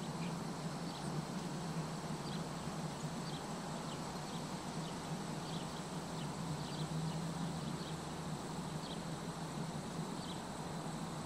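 Faint steady background ambience: an even hiss and low hum with short, high, falling chirps about once a second.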